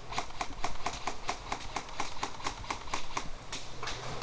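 Airsoft gunfire: a quick, uneven run of sharp clicks, several a second, from BB guns firing and BBs striking hard surfaces in an enclosed indoor arena.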